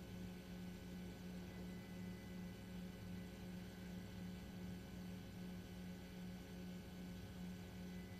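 A faint, steady low hum with a slight pulse, over a soft hiss.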